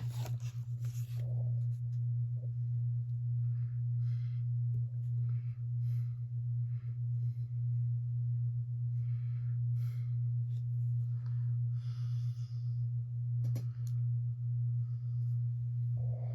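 A steady low hum, with soft, brief rustles of paper and cards being handled.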